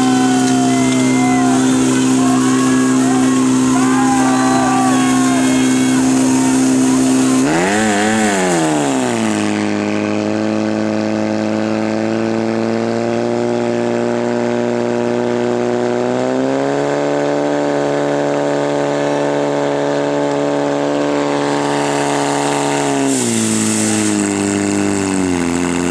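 Portable fire pump's engine running hard at high revs, a loud steady note. About eight seconds in the revs surge up and fall back to a lower steady pitch, rise again a little later and dip near the end. Shouting voices over it in the first few seconds.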